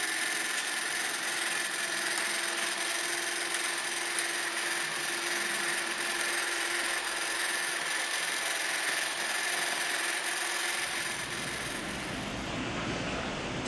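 HO-scale model train running on its track: a steady whir of a small electric motor with wheel and rail noise. A lower rumble joins about eleven seconds in.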